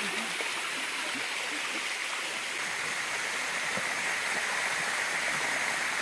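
Waterfall water running steadily in a shallow sheet over a rock cascade.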